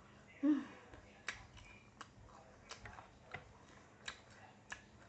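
A person eating and chewing, with sharp mouth-smacking clicks about every two-thirds of a second, after a short low hum of voice about half a second in.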